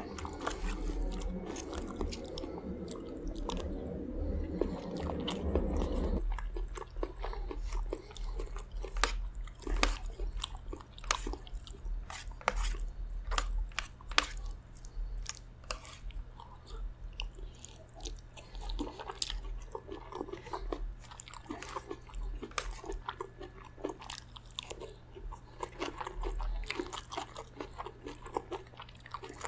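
A person chewing a meal of spicy chicken gizzard gravy, rice and lettuce salad, with wet mouth sounds and many short, crisp crunches. A denser, lower stretch of chewing fills about the first six seconds before it breaks into separate crunches.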